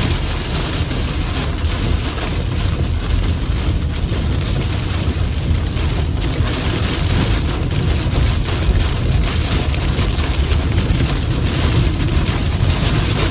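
Heavy rain beating on a car's roof and windows, heard from inside the cabin, over a steady low rumble from the vehicle.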